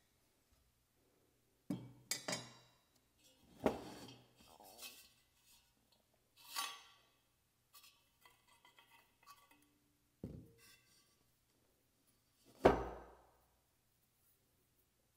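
Metal lantern parts and tools clinking and knocking as they are handled and set down: a handful of separate sharp clinks with brief ringing, the loudest near the end.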